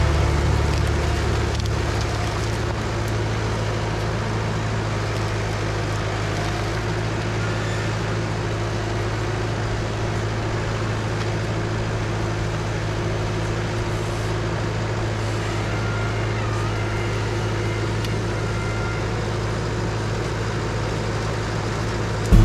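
Tractor engine running at a steady speed, a constant low drone that eases off slightly over the first couple of seconds and then holds even.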